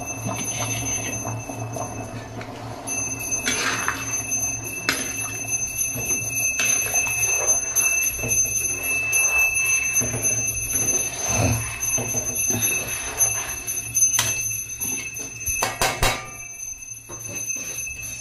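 Steel ladle stirring the rajma gravy in a steel kadai, knocking against the pan now and then. A steady high-pitched tone sounds from about three seconds in.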